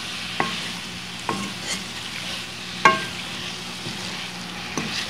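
Boneless chicken pieces frying in oil with ground spices, a steady sizzle, while a spatula stirs them and knocks and scrapes against the pan about five times; the loudest knock, about three seconds in, rings briefly. This is the chicken being roasted (bhuna) in the spice masala.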